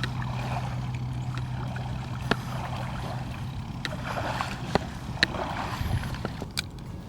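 Creek water sloshing and flowing, with a few sharp clicks scattered through and a steady low hum that stops about halfway.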